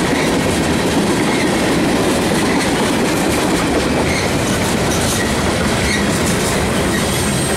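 Freight train of tank cars and boxcars rolling past close by: a loud, steady rumble of wheels on rail with scattered clicks as the wheels cross rail joints.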